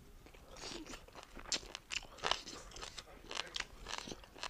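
Close-miked chewing of a mouthful of beef and rice: irregular sharp mouth clicks and crunches, a few each second.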